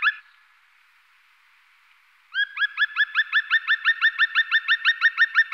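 Black woodpecker giving a rapid call series, about eight sharp notes a second, each sliding up and then down. One run stops right at the start, and after a short pause a new run begins about two seconds in and carries on.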